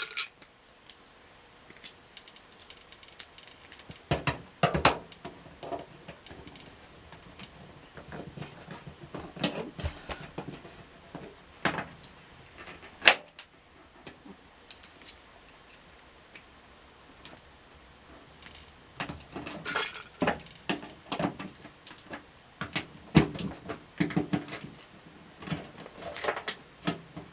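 Scattered clicks, clinks and knocks of a screwdriver, screws and the washing machine's panels being handled during disassembly, with one sharp click about halfway through and busier clatter near the end.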